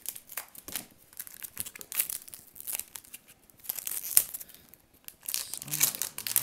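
Foil trading-card pack wrapper being torn and crinkled as it is struggled open, with irregular sharp crackles and rips.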